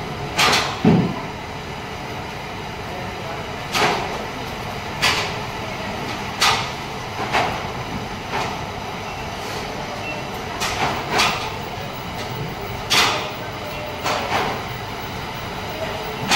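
Steady factory-floor machinery noise on a TV panel assembly line, with about a dozen irregular sharp knocks and clatters, each with a short ringing tail, and a duller thud about a second in.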